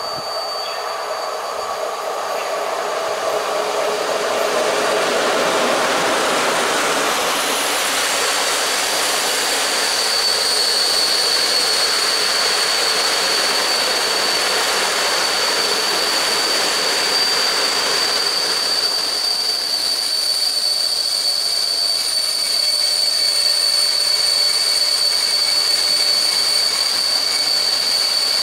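Intercity passenger coaches hauled by an EP07 electric locomotive rolling slowly through the station: the rumble of wheels on rail builds over the first few seconds. From about ten seconds in, a steady high-pitched squeal from the wheels joins it and holds.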